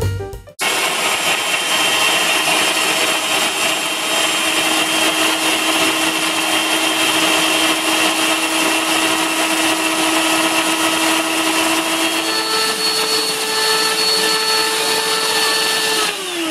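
Electric hand mixer whipping egg whites into a stiff foam in a stainless steel bowl: a steady motor whine with the beaters churning. The pitch steps up about twelve seconds in, and the motor slows down near the end.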